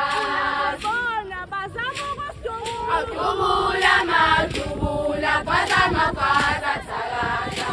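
A group of young women singing a Zulu song together in chorus, with sharp percussive beats about twice a second keeping time.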